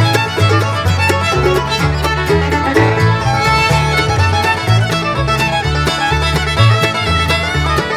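Bluegrass-style instrumental music with fiddle and banjo over a walking bass line.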